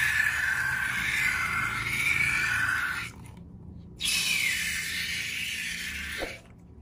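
Slime squeezed out through the neck of a rubber balloon onto a plate: a wet, hissing squirt that breaks off for about a second about three seconds in, then resumes and stops shortly before the end.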